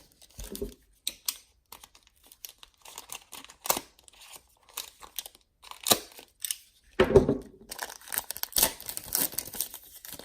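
A trading-card pack wrapper being torn open and crinkled by hand, in irregular crackles and rustles. There is a louder rustle about seven seconds in, and denser crinkling near the end.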